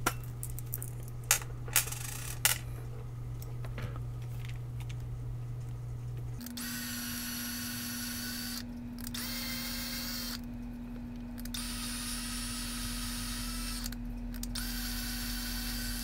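A few sharp clicks of handling, then a small cordless drill runs at low speed, drilling down into the plastic rivets of an HP 42S calculator's case. The drill's whine comes in spells, stopping briefly three times.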